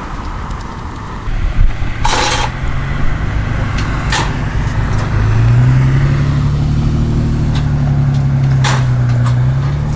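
A vehicle engine running, its hum rising in pitch and growing louder about five seconds in. There is a short burst of hiss about two seconds in, and a few sharp clicks.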